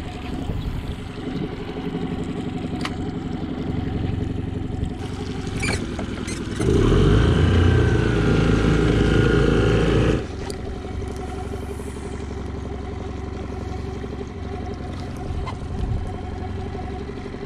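Mercury tiller outboard motor idling, throttled up for about three and a half seconds about seven seconds in, then dropping back to idle, with a couple of sharp clicks just before the throttle-up.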